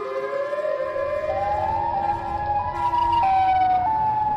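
Siren wail sound effect: one wavering siren tone that climbs slowly in pitch, then jumps up and down in sudden steps in the second half.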